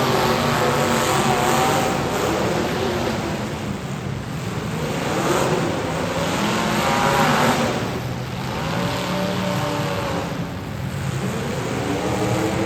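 Several demolition derby cars' engines revving hard, their pitch climbing and dropping over and over as they overlap.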